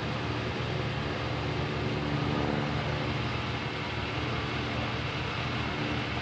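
Steady low rumble of a vehicle running, with a faint steady hum of engine tones over it.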